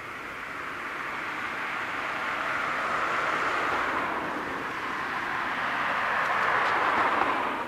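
A car driving past on the road, its tyre and engine noise swelling as it comes close and loudest near the end.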